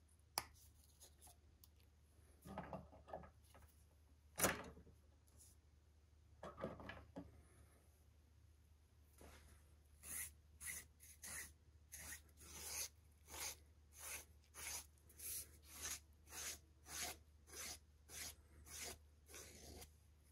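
A few quiet handling noises and a sharp knock from a hand press setting hardware in leather, then a steady run of short rasping strokes, somewhat under two a second, as the edge of a leather strap is filed or sanded by hand.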